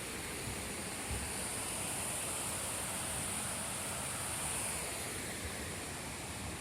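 Steady rush of flowing water from a stream running down through the forest.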